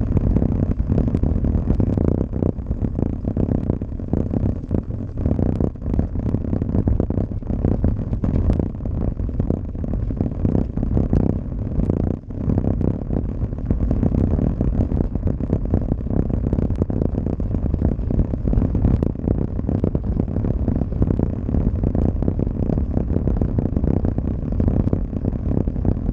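Road bicycle riding over cobblestones, heard through a handlebar-mounted GoPro Hero Session. A constant dense rattle and clatter over a steady low rumble.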